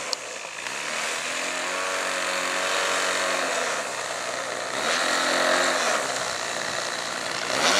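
RC Ultimate aerobatic biplane's engine running at taxi speed on the runway. Its pitch rises and falls twice as the throttle is opened and eased back, and it rises again at the very end.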